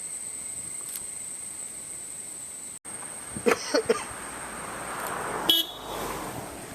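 Vehicle horn tooting in a few short blasts about halfway through, then a passing vehicle's rush with one more brief honk.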